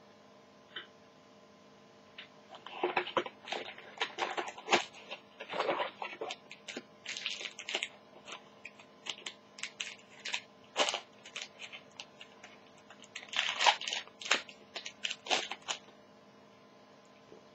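Crinkling and rustling of a trading-card pack and its cards being handled and opened in the hands, in irregular sharp bursts starting about two seconds in and stopping shortly before the end.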